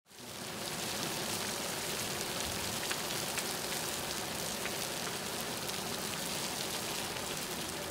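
Fly Geyser's hot-water spray hissing steadily, with scattered droplets spattering like rain. It fades in over the first half second.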